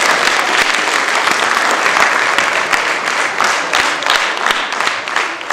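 Large audience in a concert hall applauding, dense steady clapping that begins to thin out near the end.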